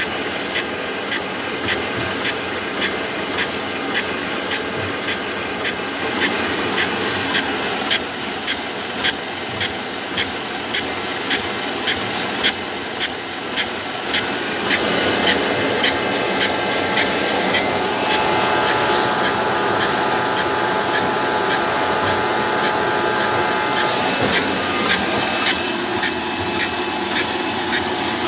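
Rotary bottling machine and conveyor of a 500 ml water-bottling line running steadily, with a regular clicking through the first half. A steady whine joins in for a few seconds past the middle.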